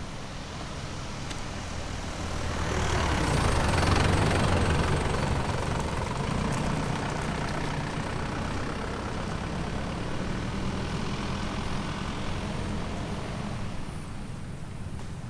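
A motor vehicle's engine running close by, swelling about three seconds in with a rush of noise and then holding steady, easing off near the end.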